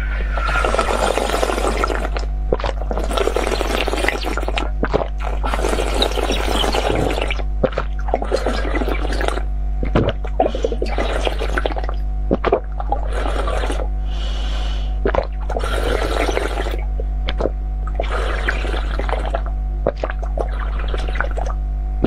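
Wet slurping and sucking of icy water from the rim of a frozen glass tube, with sharp lip clicks and drips between draws. About a dozen separate slurps of roughly a second each, over a steady low electrical hum.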